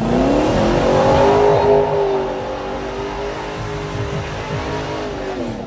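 A car engine revs up over the first second and is held at high revs while the car slides with its tyres spinning, which adds a broad rushing noise. The revs drop off near the end.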